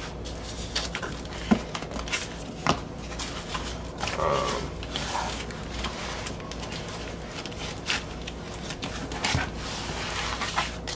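Small scissors snipping through a plastic mailer bag, with the crinkle and rustle of the plastic and a cardboard record mailer being handled: irregular snips and light clicks.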